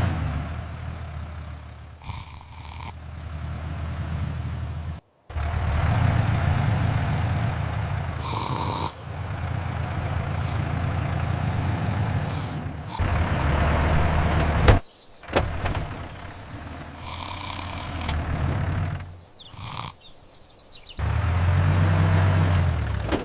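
Tractor engine running with a steady low drone, in several stretches broken by abrupt cuts and short pauses, with a few brief higher-pitched sounds in between.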